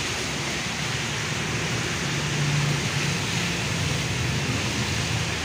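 Traffic passing on a wet road: a steady hiss of tyres on wet asphalt, with a motor's low hum swelling about two seconds in and easing off again.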